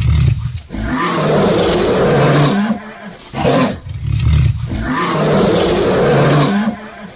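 A big cat roaring and snarling in a run of long, rough calls, about four of them, each a second or two long with short breaks between.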